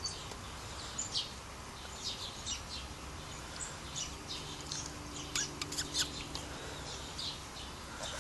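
Sparrows chirping: short, high chirps scattered throughout, several close together about five to six seconds in.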